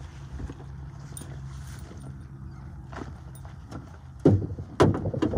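A low steady hum that stops about four seconds in, then handling noise close to the microphone: rustling and three hard knocks near the end, the loudest sounds.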